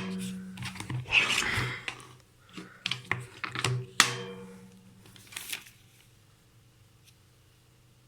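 Plastic clicks, knocks and rustling as the vacuum cleaner's parts are handled and snapped shut, with a sharp click about four seconds in. It is nearly quiet over the last two seconds.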